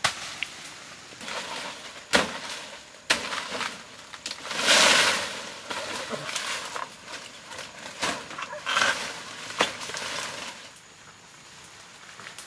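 Leaves rustling and twigs and branches snapping as a person pushes through dense jungle undergrowth. There are several sharp cracks, and a louder rush of rustling about five seconds in.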